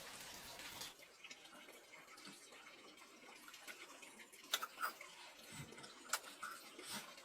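Faint water sounds: a steady rush of running water that stops about a second in, then a few sharp light clicks and knocks.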